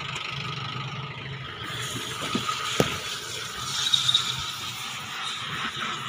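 Steady mechanical hum with a thin whine, a sharp knock about three seconds in, and a cloth rubbing over a car's door frame and seat near the middle.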